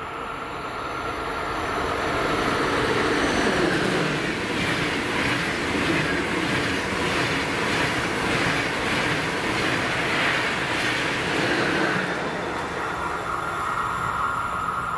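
SBB double-deck passenger train running through the station without stopping. The rumble of its wheels on the rails builds as it approaches, holds with a rhythmic clatter as the coaches pass, and eases about twelve seconds in as the train moves away.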